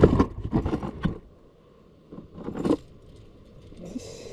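Fishing tackle rattling and clinking as it is rummaged through, in two short bouts.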